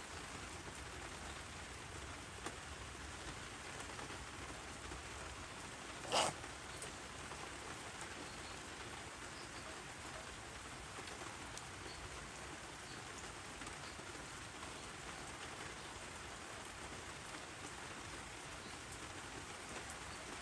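Steady rain falling and pattering on surfaces. About six seconds in comes one brief, sharp noise, louder than the rain.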